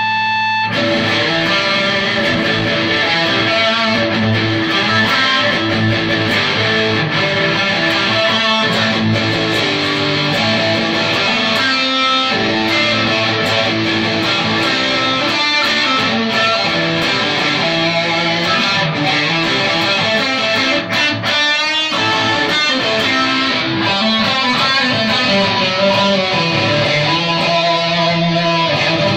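Telecaster-style electric guitar played through an amplifier, a continuous run of strummed chords and picked notes.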